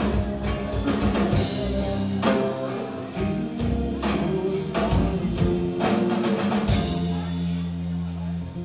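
Live indie rock band playing with drum kit and singing, the drums hitting a steady beat; about seven seconds in the band holds a sustained low chord.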